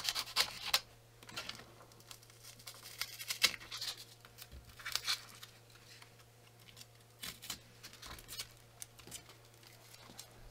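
Hardened expanding insulation foam being pried and torn out of a gap between cabin logs: short, irregular spells of crackling and scraping. A steady low hum runs underneath.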